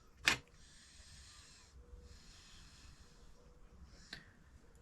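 Quiet handling of steel sockets: a short clack just after the start and a light click about four seconds in, with faint breathing in between.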